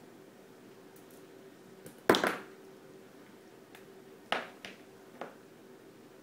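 Small plastic toy figurines clicking and knocking as they are handled: one sharp knock about two seconds in and a few quieter clicks around four to five seconds in, over a faint steady hum.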